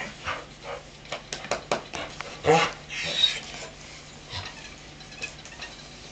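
Dog whining briefly, a short falling cry about two and a half seconds in, among scattered light clicks and taps as dogs move about.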